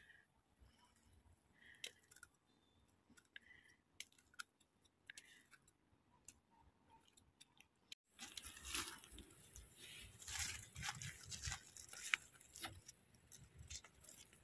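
Faint small scrapes and clicks of a knife cleaning a porcini stem, then from about eight seconds in, louder crackling and rustling of dry fallen leaves on the forest floor being disturbed.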